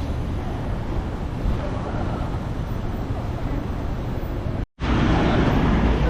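City street ambience: steady traffic noise with wind on the microphone. The sound cuts out for an instant about three-quarters through and comes back louder and heavier in the low end.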